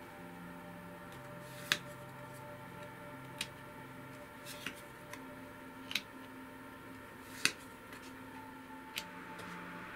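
Tarot cards being handled on a table: about seven sharp, separate clicks and snaps at uneven intervals, over a faint steady hum.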